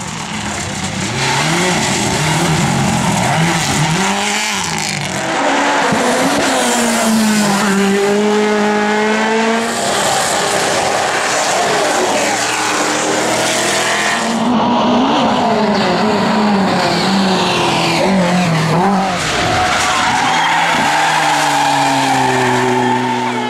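Racing car engine being driven hard, its pitch climbing and falling again and again as it revs and lifts, with tyres squealing at times.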